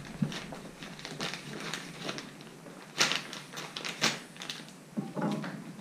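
Chef's knife slicing through a vacuum-sealed plastic bag of frozen fish fillets on a plastic cutting board, with irregular crinkling and crackling clicks. The loudest crackles come about three and four seconds in.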